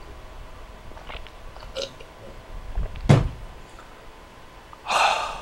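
A man gulping down a drink from a plastic cup, then a sharp thunk about three seconds in as the cup is set down on the table, and a short loud breathy exhale of relief near the end.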